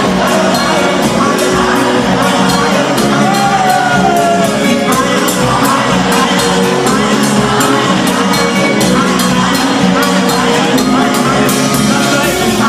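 Live gospel band playing loudly, with a drum kit keeping a steady beat under keyboard and sung vocal lines.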